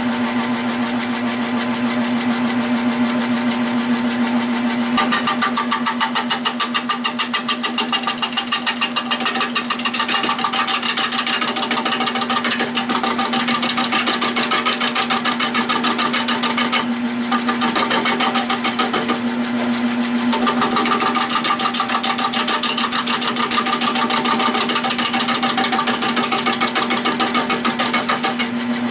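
Nova 16/24 wood lathe running with a steady motor hum while a gouge cuts the spinning oak bowl, smoothing a high spot. The cut makes a rapid, even pulsing as the tool meets the uneven surface.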